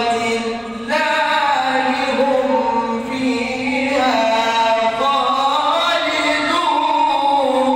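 A man reciting the Quran in the slow, melodic chanted style of tajweed, holding long notes that rise and fall in pitch. He pauses briefly for breath just before a second in.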